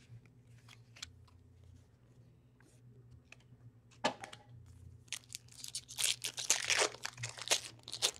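Wrapper of a trading card pack being torn open and crinkled: a few faint clicks, then a sharp crackle about four seconds in and loud crinkling through the last few seconds.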